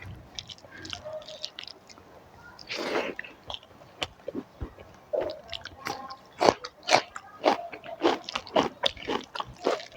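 Close-miked chewing of a mouthful of food, with sharp wet mouth clicks that are sparse at first and settle into a steady rhythm of about two chews a second from the middle on.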